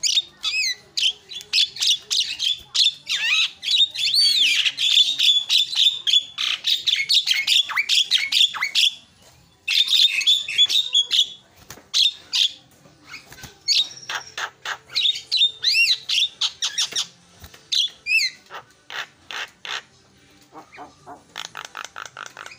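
Javan myna (jalak kebo) singing a rapid, varied song of harsh chatter, clicks and whistled gliding notes, breaking off briefly about nine seconds in, with runs of fast repeated notes toward the end.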